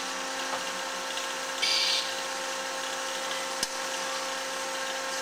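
Behringer HBP 263A automatic horizontal band saw running in auto cycle with a steady hum. A short hiss comes about a second and a half in, and a single sharp click a little past halfway.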